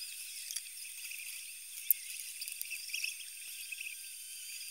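Faint, thin handling noise of hands pressing and shaping modelling clay on a wooden worktable: scattered small taps and clicks, one sharper about two seconds in, over a steady high hiss.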